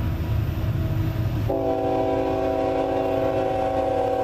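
Diesel locomotive's multi-chime air horn sounding one long chord of several notes, starting about a second and a half in, over a low rumble.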